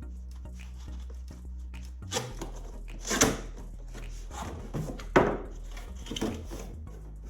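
Cardboard box and packaging being opened and handled: a run of rustles and knocks starting about two seconds in, the loudest near three and five seconds in. A low bass line of background music runs underneath.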